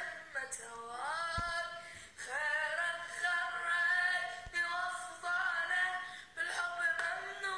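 A high-pitched voice singing unaccompanied, with long held notes that slide between pitches.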